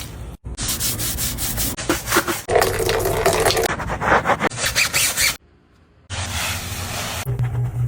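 Rapid scrubbing strokes rubbing against a surface while cleaning, in several stretches that stop abruptly, with a break of about a second near the middle.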